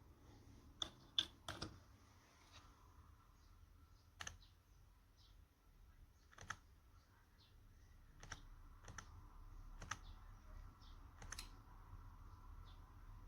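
Computer keyboard and mouse clicking: about ten sharp clicks at irregular intervals, a few bunched close together, over a faint low hum.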